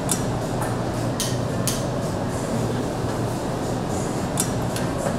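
Restaurant room noise: a steady rumble with about five sharp clinks of tableware.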